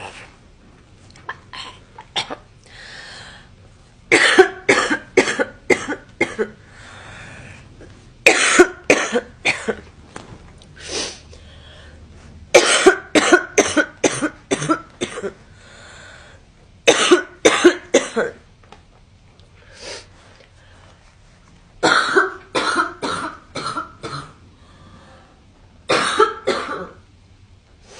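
A girl coughing in repeated fits. Each fit is a quick run of about two to six sharp coughs, coming every few seconds, with hazy breaths drawn in between.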